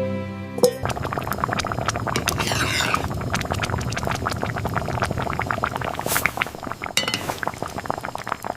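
Music cuts off about a second in, giving way to a dense, rapid run of small clinks and clatters of hard objects knocking together.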